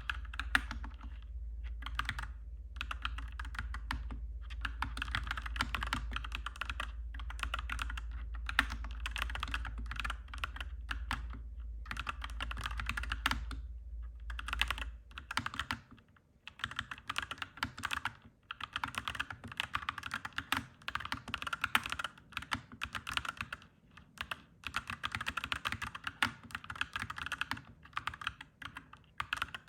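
Fast, continuous typing on a clacky mechanical keyboard, in runs of keystrokes broken by short pauses. A steady low rumble runs underneath and stops about halfway through.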